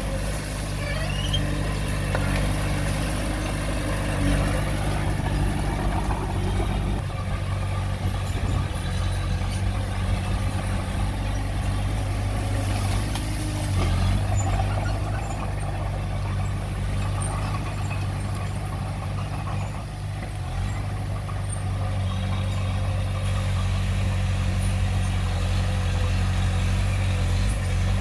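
Heavy earthmoving machinery, a bulldozer or dump truck, with its engine running steadily as a continuous low drone.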